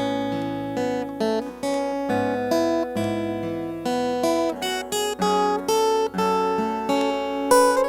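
Solo acoustic guitar played fingerstyle: single plucked notes and light chords over ringing bass notes, a slow, even melody.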